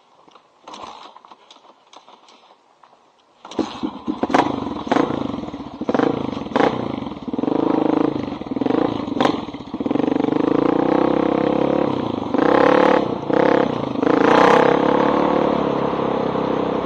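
A 1985 Honda XR350R's single-cylinder four-stroke engine fires up through a loud exhaust pipe about three and a half seconds in. It revs in short, uneven blips with popping, then settles into steady running as the bike rides off.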